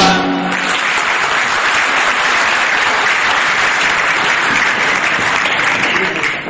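Audience applauding: steady clapping from a large crowd, starting to fade near the end.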